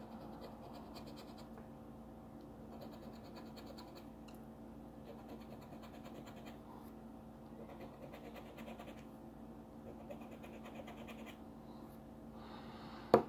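Silver coin scraping the scratch-off coating off a paper lottery ticket, in six bouts of about a second each, over a low steady hum. A sharp knock comes right at the end.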